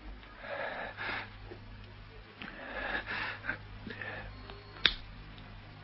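A person breathing in a radio drama: two long breaths about two seconds apart, then a single sharp click near the end, over a steady low hum from the old recording.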